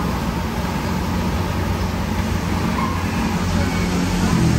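Steady road traffic noise with the low hum of a vehicle engine running.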